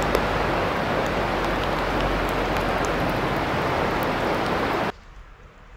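Steady, even rushing noise with scattered faint ticks, starting abruptly and cutting off suddenly about five seconds in.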